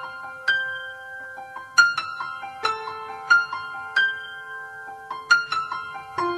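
Background music: a piano playing a gentle melody of single struck notes over held bass notes.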